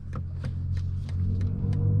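BMW i7's synthesized electric drive sound: a low, pitched hum that rises slightly in pitch and grows louder as the car picks up speed. A steady ticking runs through it, about three ticks a second.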